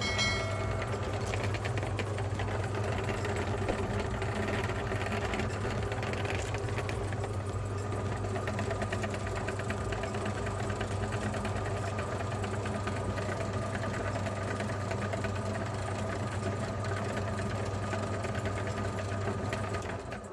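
Electric meat grinder's motor running with a steady hum.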